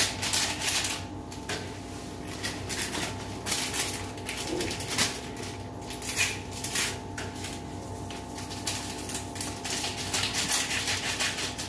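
Small vanillin sachets being torn open and emptied over a mixing bowl: irregular crinkling, rustling and tearing of the packets, over a faint steady hum.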